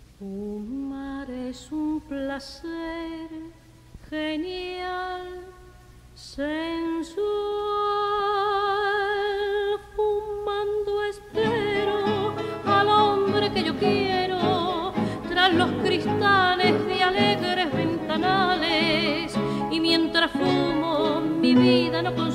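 Soundtrack music in an operatic style: a melody with strong vibrato, halting and broken by short pauses at first, joined by a fuller, denser accompaniment about eleven seconds in.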